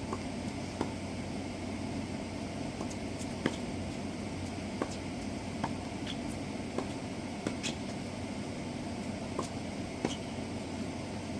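Tennis balls being struck and bouncing on a hard court during a rally: sharp pops at uneven intervals, roughly one a second, over a steady background hum.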